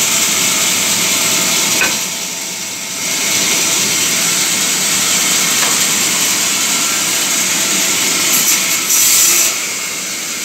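Wood-cutting band saw running, its blade sawing through timber as a steady high-pitched noise. The noise dips about two seconds in and is at its loudest a little before the end.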